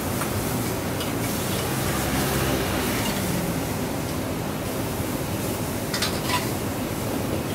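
Noodles and bean sprouts being stir-fried in a wok: sizzling over the steady rush of a gas wok burner, with a metal spatula and ladle scraping and tossing against the wok. A couple of sharper metal clinks come about six seconds in.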